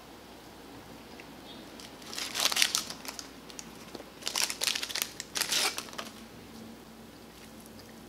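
Paper fast-food wrapper crinkling as it is handled, in one burst about two seconds in and a longer run of crinkles from about four to six seconds in.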